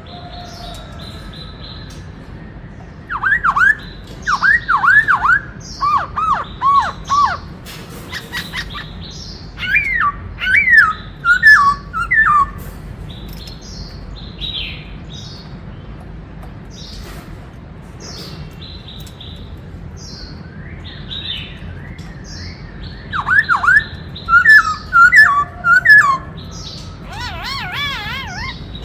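White-cheeked laughingthrush singing loud bouts of rapid, swooping whistled notes, three times, with fainter high chirping throughout.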